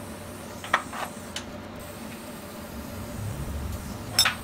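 A 200-amp TIG arc making fusion tacks on 304 stainless tubing, a steady hiss, with a few sharp clinks of the steel pieces being handled on the welding table: the loudest about three-quarters of a second in and again near the end.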